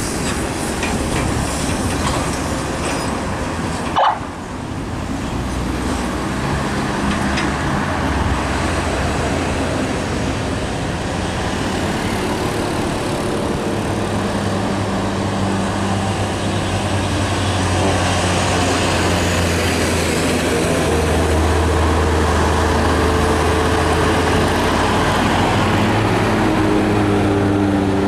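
Heavy diesel truck engines working hard up a steep climb, a steady low drone that grows louder in the second half as a laden container truck approaches. A brief sharp pop about four seconds in.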